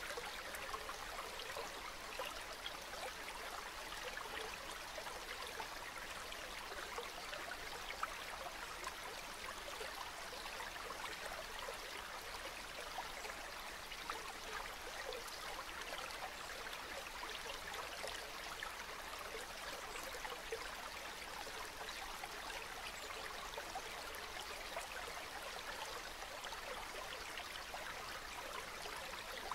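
Calm river water flowing: a steady, even babble with fine trickling splashes.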